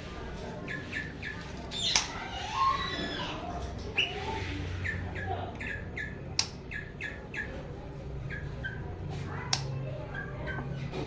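African grey parrot calling: a run of short chirps and clicks, with gliding whistles about two seconds in and a few sharp, louder squawks or clicks spread through.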